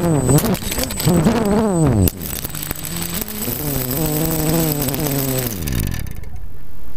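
DJI F330 Flamewheel quadcopter's electric motors whining with their pitch swinging wildly up and down as it tumbles out of control, a loss of control the owner blames on a bug in the Naza Lite flight controller. It knocks into the ground about half a second and two seconds in. The motors then run on at a lower pitch before winding down and stopping about six seconds in, leaving wind noise on the microphone.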